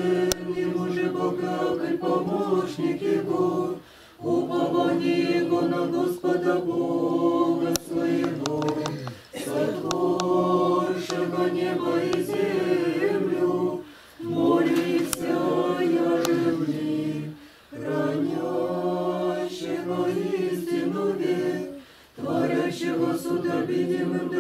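A small group of voices singing an Orthodox prayer together a cappella, in sustained phrases broken by brief pauses about every four to five seconds.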